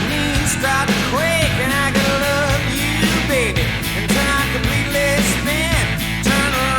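Southern rock band playing an instrumental passage: an electric lead guitar line with notes bending up and down over drums and bass.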